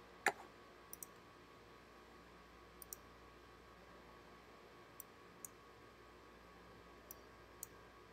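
Faint, sparse computer clicks as settings are chosen in a dialog: one sharper click just after the start, then single or paired clicks every second or two over faint room noise.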